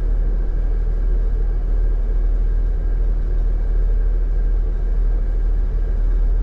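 A Jeep's engine and drivetrain give a steady low rumble as it crawls slowly down a rocky dirt trail.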